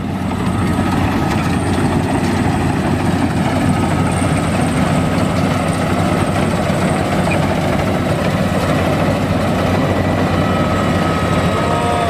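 FMWORLD rice combine harvester running steadily under load while cutting and threshing rice, a steady mechanical drone with a thin steady whine above it.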